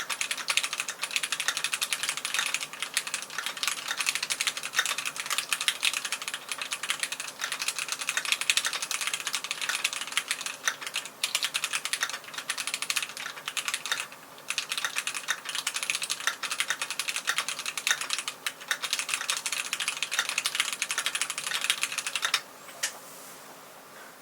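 Rapid, continuous typing on a Keychron Q1 Knob, an aluminium-case mechanical keyboard, with dense key clacks. The typing stops about two seconds before the end, and one last lone click follows.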